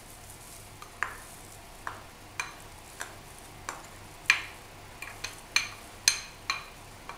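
A ladle scraping and knocking against a small ceramic bowl as chopped celery is scraped out of it: about a dozen short, sharp clicks at irregular intervals, with the loudest ones a little past the middle.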